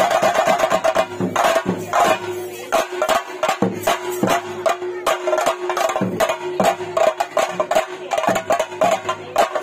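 Kerala temple percussion for a theyyam's emergence: chenda drums and cymbals beating a fast, steady rhythm, with a held high tone running under the strikes.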